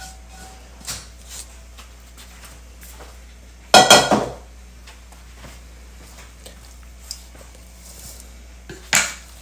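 Metal cookware clattering: a wok and a stainless-steel mixing bowl knocking as stir-fried glass noodles are tipped out, with a few small knocks, one loud ringing metal clang a little under four seconds in, and another sharp knock near the end.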